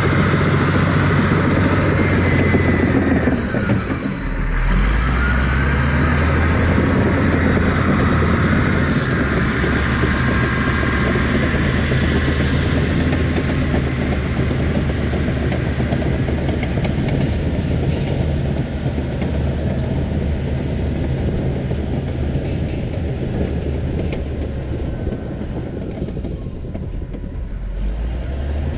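Engine of an earthmoving machine running steadily while pushing topsoil; about four seconds in the engine note drops briefly, as if lugging under load, then comes back up.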